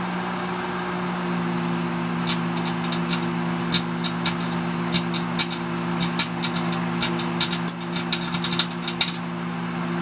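Microwave oven running with a steady hum. From about a second and a half in until near the end, irregular sharp snapping clicks come as a dead 1A7G vacuum tube inside sparks and its gas lights up.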